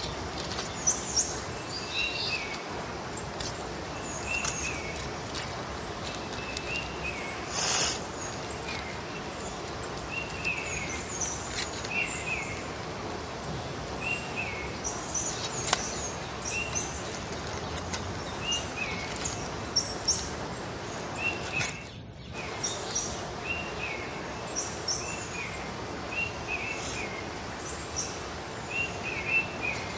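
Small birds chirping, short call phrases repeated every second or two over a steady hiss of outdoor background noise.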